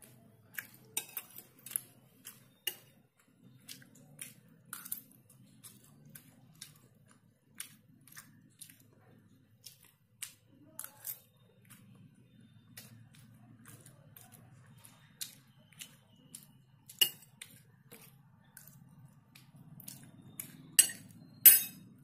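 Metal spoon clinking and scraping against a ceramic plate in scattered, irregular taps, with two louder clinks about 17 and 21 seconds in.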